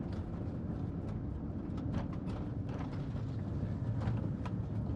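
Car running, heard from inside the cabin: a steady low rumble with scattered faint ticks.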